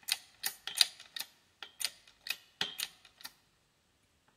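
Bronze bushing being pressed into the cast-iron steering gear housing with a socket as the driver, giving a quick, uneven run of sharp metallic clicks that stops about three seconds in.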